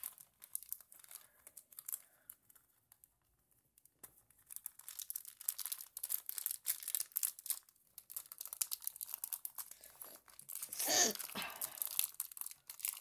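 Clear plastic shrink-wrap being picked at, crinkled and torn off a 2x2 puzzle cube, packaging that is super hard to open. A few faint clicks at first, then steady crinkling and tearing from about four seconds in, with one louder squeak falling in pitch near the end.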